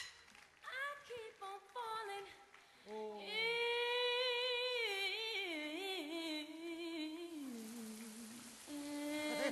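A solo voice singing a slow melody with almost no accompaniment: short phrases at first, then from about three seconds in a long held line that drifts and falls in pitch near the end.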